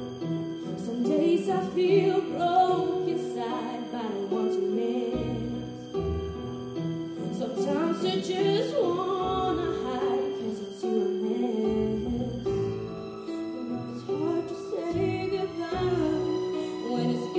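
A girl singing a slow melody solo into a handheld microphone, with instrumental accompaniment holding low notes beneath her voice.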